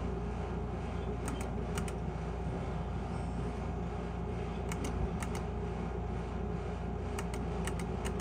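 Pennsylvania skill game machine being played: a steady electrical hum with several pairs of short sharp clicks spaced a second or two apart, in step with the spins.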